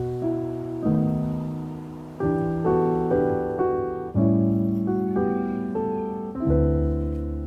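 Background piano music: notes and chords struck one after another, each ringing and fading before the next.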